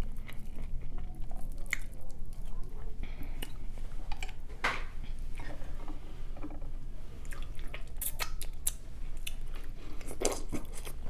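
Close-miked eating of a seafood boil: chewing and wet mouth clicks, with scattered sharper cracks about halfway through and again near the end.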